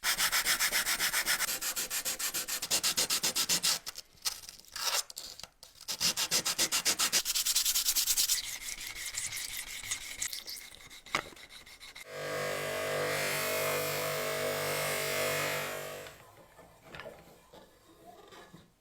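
Rapid back-and-forth hand scrubbing or sanding on the old apple peeler's parts, in long runs with short pauses. About twelve seconds in, a small electric tool runs steadily for about four seconds, then stops.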